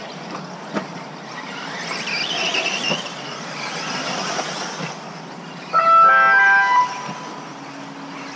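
Electric 1/10-scale off-road buggies racing on an astroturf track, their motors whining up and down in pitch as they accelerate and brake. About six seconds in, a loud pitched tone steps through several notes for about a second.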